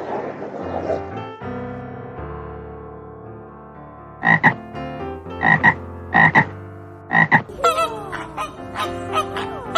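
An animal's short calls, four of them between about four and seven and a half seconds in, over steady background music with held notes; from about eight seconds in, quicker chirping calls with sliding pitch.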